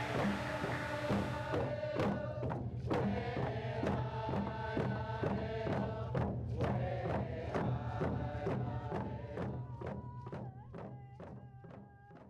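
Voices chanting a First Nations song over a steady, fast beat, fading out near the end.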